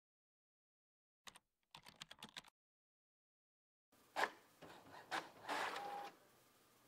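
A short run of computer keyboard keystrokes, then a printer running: clicks and a mechanical whir as it feeds the printed sheet out into the tray. The printer part is the louder of the two.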